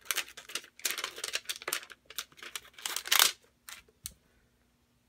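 Crinkling and rustling of a plastic stamp case and sheet with small clicks as a stamp is picked out and handled, falling quiet about four seconds in.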